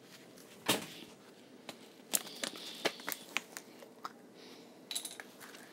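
Handling noise from plastic bottles and containers: a knock a little under a second in, then scattered clicks, taps and crinkles of thin plastic.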